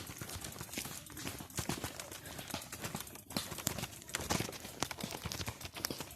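Irregular footsteps with sharp clicks and scrapes on a rough, stony trail, uneven in rhythm.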